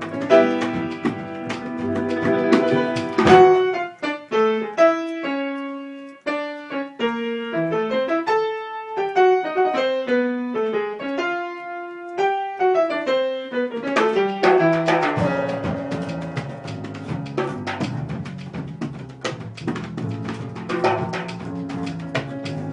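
Instrumental jazz piece led by piano. From about three seconds in, the piano plays a solo passage of clear, separate notes. Around fourteen seconds in, the fuller band with drums comes back in.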